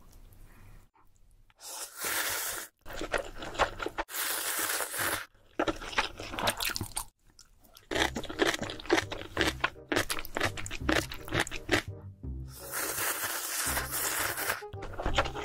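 Close-miked crunching and chewing of food in several short clips cut one after another, over background music with a steady low beat.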